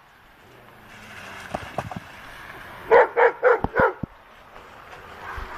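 A dog barking four quick times about three seconds in, with a few dull thumps around the barks.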